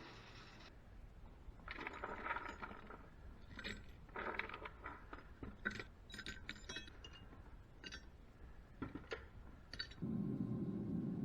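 Light metallic clinks and short scrapes of small metal pieces being handled, scattered and irregular. Near the end a steady low rushing noise starts.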